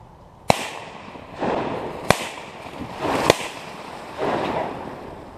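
Three shotgun shots fired at ducks, about a second and a half apart, each followed about a second later by a rolling echo.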